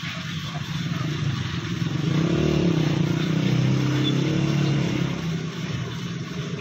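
A motor vehicle engine running, growing louder about two seconds in with a rise and fall in pitch as it passes, then easing off.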